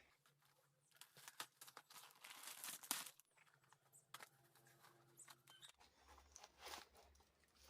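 Faint rustling, crinkling and tearing of a plastic courier package being cut open, with scattered small clicks and a few louder rustles.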